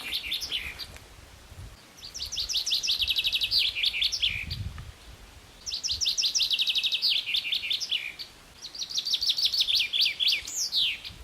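A songbird singing three long phrases, each a rapid trill of high repeated notes. The last phrase ends in a falling sweep.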